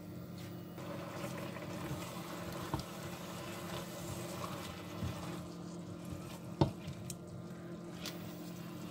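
Spinach, chicken, prawns and mushrooms being stirred in a stainless steel pot with a plastic spoon: soft wet squelching and simmering liquid. There are a few light knocks of the spoon against the pot, the sharpest about three-quarters of the way in, over a faint steady hum.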